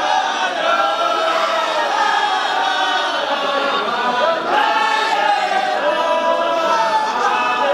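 Many men's voices chanting together without pause, a Sufi dhikr chant sung by a circle of men.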